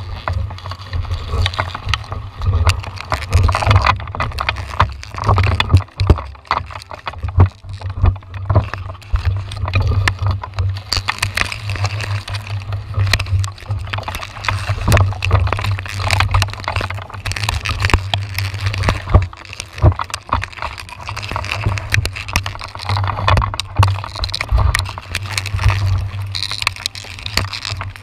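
Wind buffeting the microphone of a body-worn camera high in a tree, a heavy rumble that rises and falls, with frequent clicks and knocks from branches and rain against the camera.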